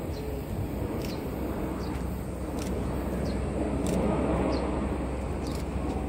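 Distant jet roar from a formation of Kawasaki T-4 jet trainers passing overhead: a steady low rush that builds a little about four seconds in.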